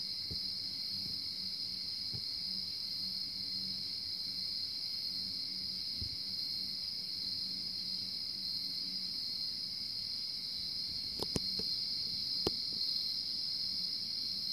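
A steady, high-pitched chorus of night insects, with a faint low hum beneath it and a couple of soft clicks near the end.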